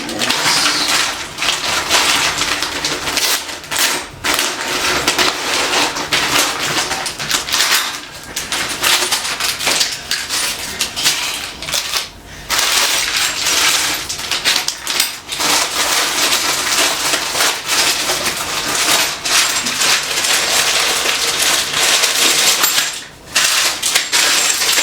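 Packaging being handled while a flat-pack shelving unit is unboxed: continuous crinkling and rustling of wrapping, with many small clicks and clinks of parts, pausing briefly twice.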